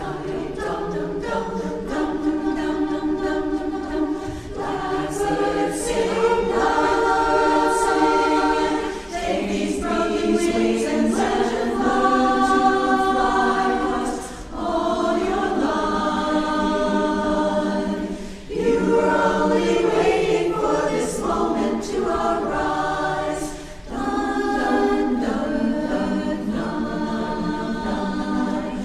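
A chorus singing in sustained multi-part harmony, in phrases broken by brief pauses about every four to five seconds.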